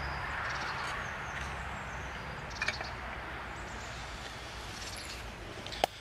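Woodland ambience: a steady rushing background with birds chirping high above it, and footsteps on forest litter with two sharper snaps, one about two and a half seconds in and one near the end.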